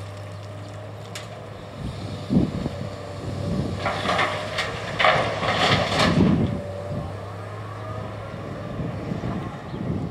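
Komatsu PC240-8 excavator's diesel engine running with a steady hum. About four seconds in, a loud stretch of harsh scraping and clattering of rock lasts about two and a half seconds, then the engine hum carries on.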